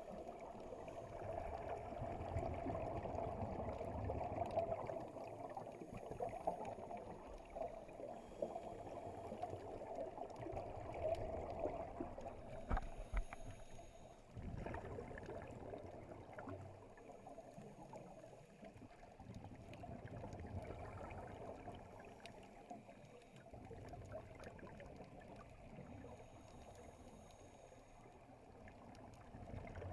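Muffled underwater noise picked up by a camera in a waterproof housing during a scuba dive, swelling and easing, with a few sharp knocks about halfway through.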